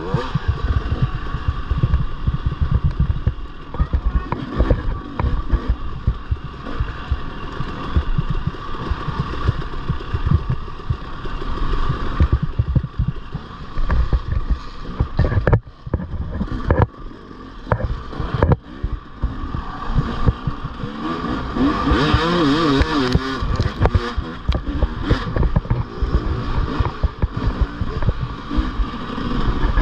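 Off-road motorcycle engine running hard and revving up and down as the bike is ridden, with a heavy rumble. The engine drops away briefly a few times around the middle as the throttle is shut off.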